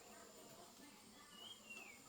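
Faint outdoor ambience: a steady high insect drone, with one short call falling in pitch from a bird about one and a half seconds in.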